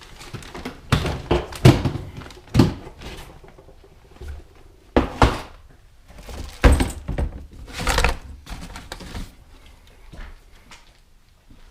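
Hand tools knocking and clattering in irregular thunks and rattles while a toolbox or bag is rummaged through for a tool.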